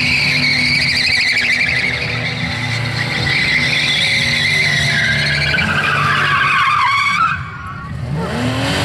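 Holden VB Commodore doing a burnout: the engine is held at high revs while the spinning rear tyres squeal, the squeal sliding down in pitch. Just past seven seconds the throttle is lifted and the sound drops suddenly, then the engine revs rise again near the end.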